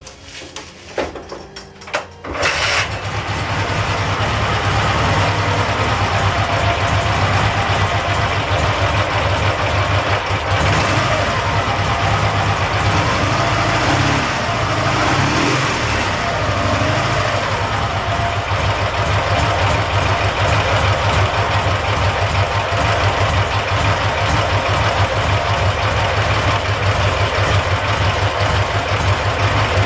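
Dnepr MT-10-36 motorcycle's flat-twin engine starting after a couple of short bursts, catching about two and a half seconds in and then running steadily.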